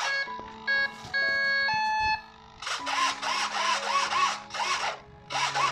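Short electronic beeps, then the model airplane's small servos whirring in quick bursts, about two a second, as the control surfaces are driven back and forth from the transmitter to check the stabiliser's servo response. Background music runs underneath.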